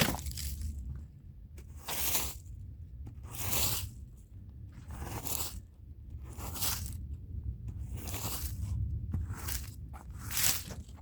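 Stiff hand brush scrubbing a rug's fibres in repeated scraping strokes, about one every one to two seconds, over a steady low hum.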